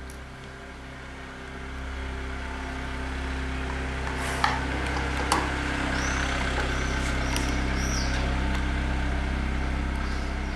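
An engine or motor running steadily, growing louder over the first two seconds. Two sharp metallic clicks about four and a half and five and a half seconds in, from the steel parts of a hand-held tape tying tool being fitted together.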